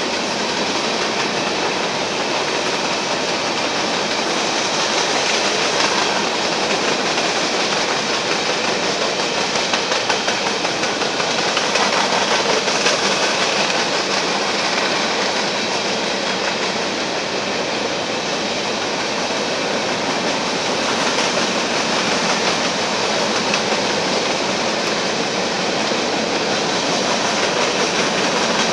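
Covered hopper cars of a long freight train rolling past: a steady rumble and clatter of steel wheels on the rails.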